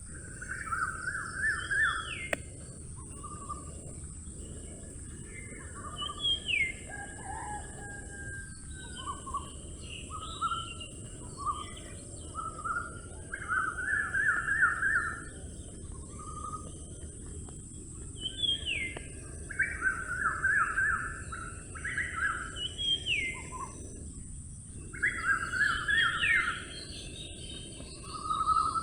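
Several forest birds singing: repeated phrases of quick trilled notes and short upward-swept calls, coming in bursts every few seconds, over a steady low background rumble and a constant high hiss.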